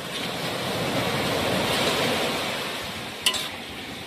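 A rushing noise swells and fades. About three seconds in, a metal spatula clinks once against the steel wok as the shredded papaya is stirred.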